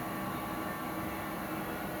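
Milling machine running steadily: an even motor and gear hum with a few steady tones over a hiss.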